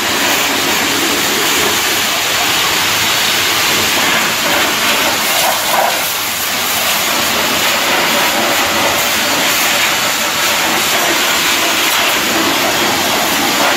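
High-pressure washer jet spraying against a truck's engine, wheel and chassis, a steady hiss of water blasting off mud.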